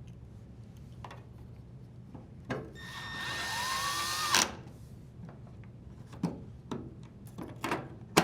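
Cordless drill driver with a Phillips bit driving a screw home, its motor whine rising in pitch for about a second and a half before stopping with a knock. Several short clicks and knocks of parts being handled follow.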